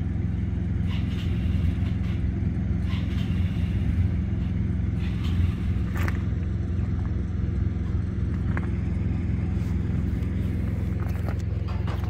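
Harley-Davidson air-cooled V-twin engine idling steadily with an even, low rumble.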